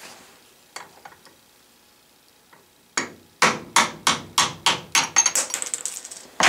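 Hammer blows on a brass rod drift, knocking a tight ball bearing out of a band sander wheel held over a vise. After a few faint handling clicks, about a dozen quick strikes come at roughly three a second, beginning about three seconds in, with a slight metallic ring among the later ones.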